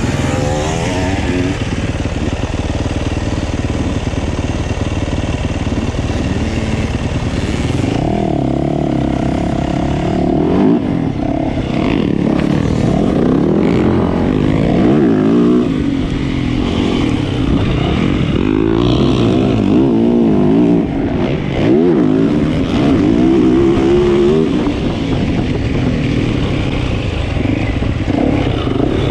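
65cc two-stroke youth dirt bike engines revving hard, their pitch rising and falling again and again as they accelerate and back off.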